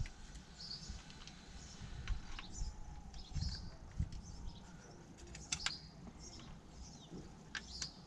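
Light clicks and taps as aluminium steering rack bushes and their clamps are worked into place by hand on the underside of a car, over faint bird chirps.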